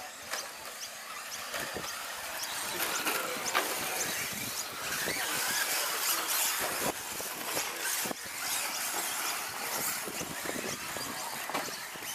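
Radio-controlled short-course trucks running on a dirt track: a steady hiss and crunch of tyres on loose dirt, with short high motor whines as the trucks are throttled.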